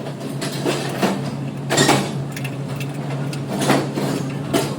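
Hand tools working on a car's sway bar link: several irregular metal knocks and clinks, roughly a second apart, over a steady low hum.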